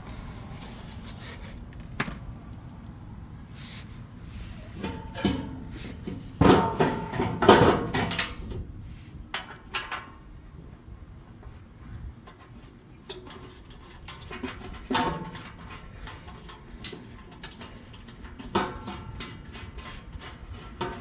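Knocks, scrapes and metallic clanks of the Tacoma's front skid plate being hooked back into place and handled under the truck, with a louder clatter about six to eight seconds in.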